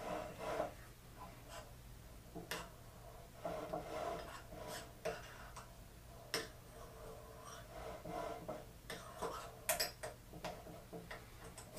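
Scattered light metallic clicks and clatter of tool and cutter grinder parts being handled and fitted by hand, over a faint steady hum.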